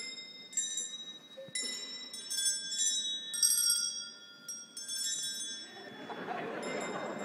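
High-pitched bells struck one at a time, about seven strikes at uneven intervals, each note ringing on. Crowd noise rises near the end.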